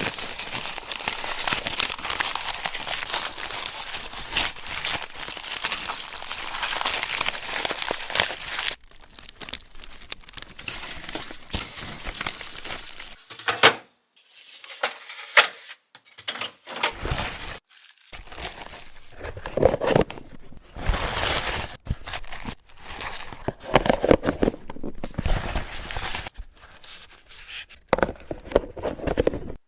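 Plastic packaging being crinkled and torn, a dense crackling for about nine seconds, then a run of separate rustles and soft thunks from handling.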